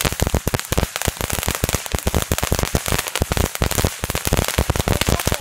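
Ground fireworks going off in a loud, rapid, unbroken string of sharp cracks and pops, many per second, like a lit string of firecrackers.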